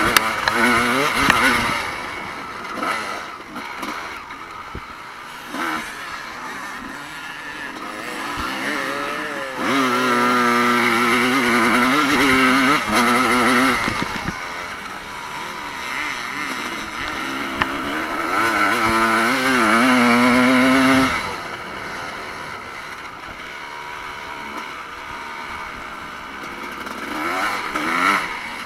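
Motocross motorcycle engines racing, revving up and down as they are ridden hard. They are loudest in two long pulls, about ten and about nineteen seconds in.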